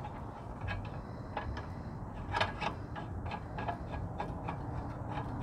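Light metallic clicks and ticks of a fill-station connector being threaded by hand onto an SCBA cylinder valve, a small cluster of louder clicks about two and a half seconds in, over a steady low hum.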